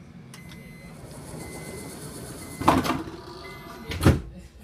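Two loud thuds about a second and a half apart, the second the louder, over a low rumble that builds slowly.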